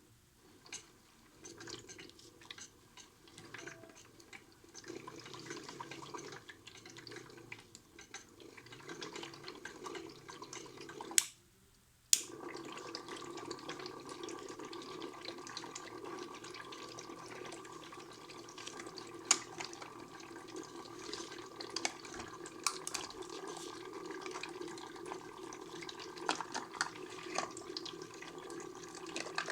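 Modified Miele toy washing machine taking in water: trickling and splashing over a steady hum. About eleven seconds in, two sharp clicks a second apart with near silence between them; after that the water runs on with a steady tone added.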